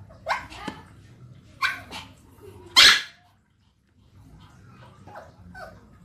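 Canada geese honking: about four calls in the first three seconds, the loudest just before three seconds in, followed by softer calls.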